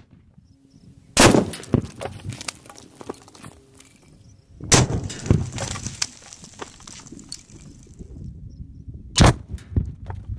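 Three booms of a 2-pound tannerite charge exploding: about a second in, near five seconds and near nine seconds. Each is a sharp blast followed by a few seconds of scattered crackles and pieces rattling down.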